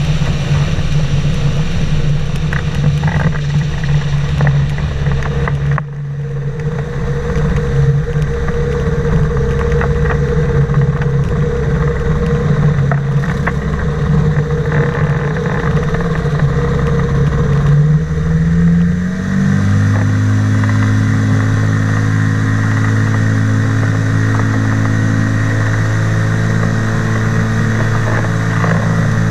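Engine of a flying inflatable boat running steadily, with a sudden drop in loudness about six seconds in. Later the engine speed rises, then holds steady at the higher note.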